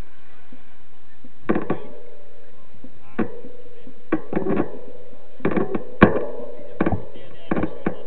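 Mountain bike rattling over a rough dirt road: a string of irregular sharp knocks and clicks from the frame and mount over a steady rolling noise, the loudest knock about six seconds in.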